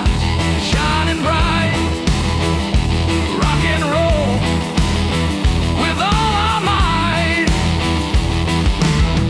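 Instrumental break in a southern rock song: a lead line with bending, sliding notes over bass and a steady drum beat.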